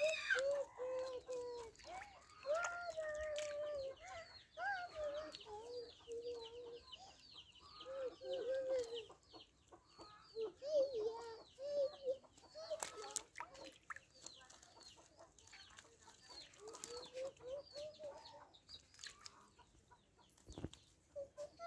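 Chickens clucking, with repeated calls, some drawn out for about a second, over light clicks and rustles from hands working through a nylon cast net. A dull thump near the end.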